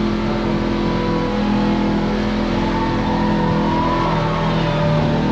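Kawasaki Teryx KRX4 1000 side-by-side's parallel-twin engine running under throttle as it is driven along a trail, holding a fairly steady pitch with small rises and dips.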